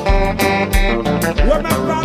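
Live konpa band music: guitar and keyboard chords over a steady low drum and bass beat about every two-thirds of a second, with quick cymbal ticks in between.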